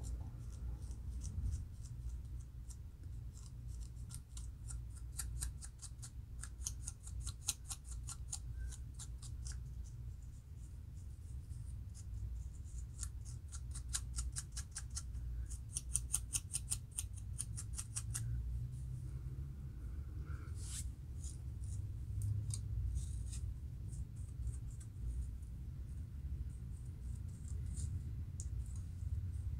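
Fine metal-toothed comb scratching along the scalp in bursts of quick, short strokes, lifting dandruff flakes from a dry scalp, over a low steady rumble.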